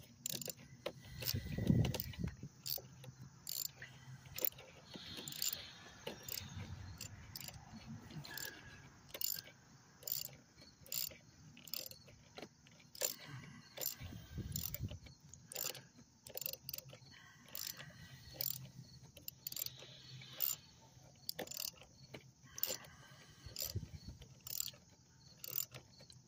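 Hand ratchet clicking in short runs as bolts are tightened down by hand, its pawl ticking on each return stroke, with a couple of dull knocks from the tool against the engine. The ratchet is worn out.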